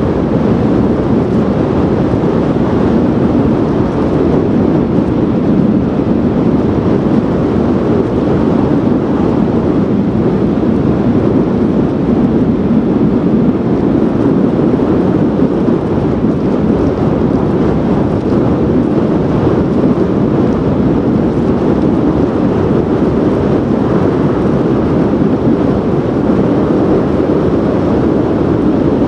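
Strong wind buffeting the microphone over the steady noise of breaking surf, an even rush with no breaks or changes.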